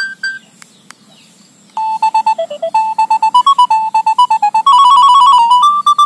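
Nokia 3200 built-in ringtones previewing from the phone's speaker: one electronic beeping tune stops in the first half-second, two faint clicks follow, and the next tune starts a little under two seconds in. It steps through short beep notes, with a quick run of rapidly repeated notes about five seconds in.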